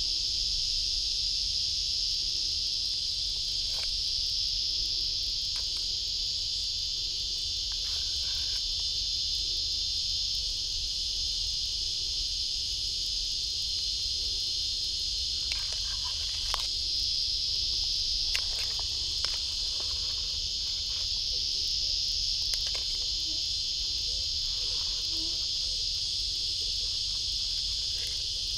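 Steady, high-pitched drone of an insect chorus, with a few faint clicks and knocks here and there.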